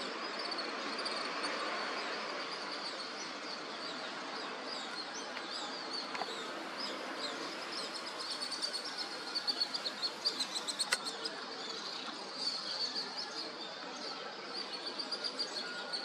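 Many small birds chirping and twittering in quick, high notes over a steady hum of background noise, with runs of rapid notes a little past the middle and again near the end. A single sharp click sounds about two-thirds of the way in.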